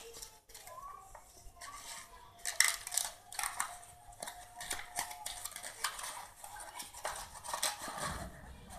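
Yellow card being folded and pressed into a pillow-shaped gift box on a clipboard: irregular crackles and rustles of the paper, busier after the first couple of seconds.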